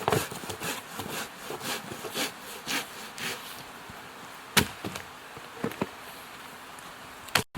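Hand saw cutting through wood in even strokes about twice a second, which stop about three seconds in. A single sharp knock follows about a second later.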